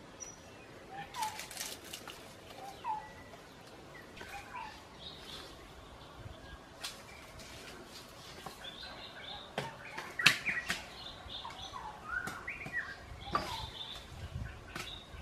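Forest birds calling: a short hooked note repeated every second or two in the first few seconds, then a mix of higher chirps. Over them come crackles and snaps of dry leaves and twigs under someone moving through undergrowth, with one sharp snap about ten seconds in the loudest.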